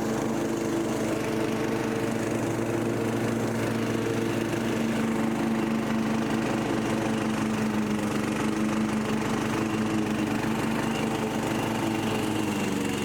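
Freshly rebuilt Briggs & Stratton 17.5 HP lawn mower engine running steadily, its pitch dipping slightly near the end.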